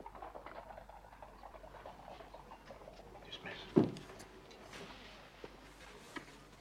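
Low murmured voices, then a single dull thud about four seconds in, followed by a few light footsteps.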